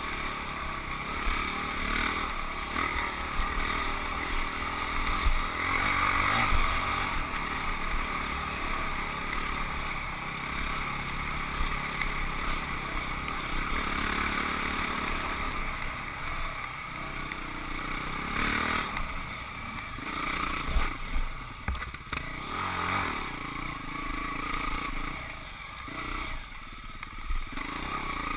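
Husqvarna 449 dirt bike's single-cylinder engine running as the bike is ridden, the throttle opening and closing, with a few dips near the end.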